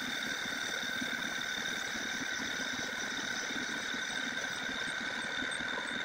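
Homemade metalworking lathe running at a steady speed on its battery-powered electric motor: an even whine made of several steady high tones over a lower hum, with no change in speed.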